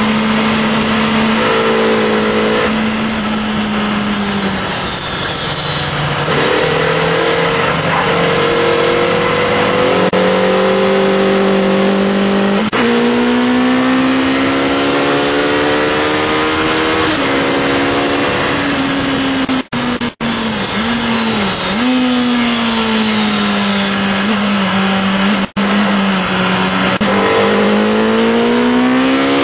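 Onboard sound of a Honda CBR Fireblade's inline-four engine at speed on a race track, its revs climbing and falling as it accelerates and shifts gear, over steady wind rush. The sound cuts out very briefly a few times about two-thirds of the way through.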